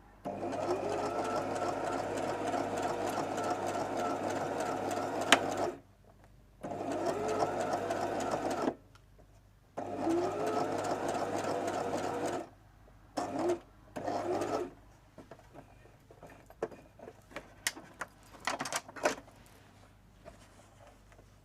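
Brother LS14 sewing machine stitching in runs: one of about six seconds, two of two to three seconds, then two brief bursts. Each starts with a rising motor whine as the machine speeds up. Scattered light clicks follow near the end.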